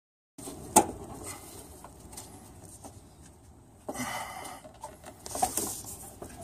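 Small handling noises: scattered clicks, knocks and rustling as gloved hands work the plastic fuel-line connectors and hoses on top of a fuel tank, with one sharp click about a second in.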